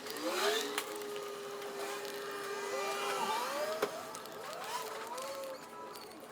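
Small electric motor whining. It rises in pitch at the start, holds a steady pitch for about three seconds, then wavers up and down.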